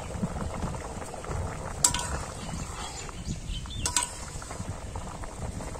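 Tilapia and potato curry boiling in a metal wok, bubbling steadily while a metal spatula stirs it. The spatula clinks sharply against the pan twice, about two seconds in and again near four seconds.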